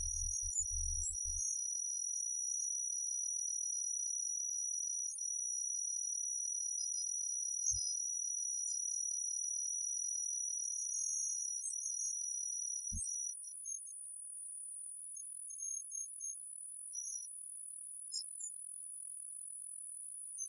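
Steady high-pitched whine made of several thin unchanging tones. A low rumble stops about a second in, and two brief low thumps come about eight and thirteen seconds in.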